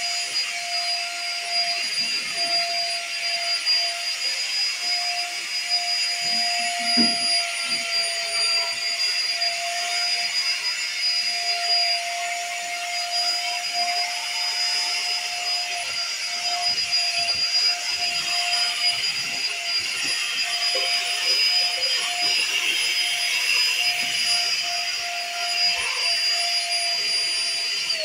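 Corded stick vacuum cleaner running steadily, a high motor whine over a rushing hiss as it cleans sofa upholstery and carpet. It is switched off at the very end, the whine starting to fall as the motor winds down.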